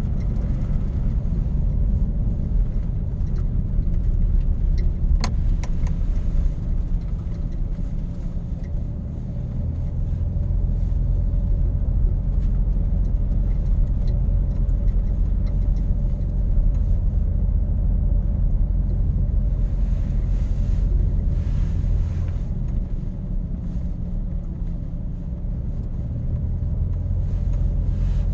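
A truck running with a steady low rumble, its low tone shifting a couple of times.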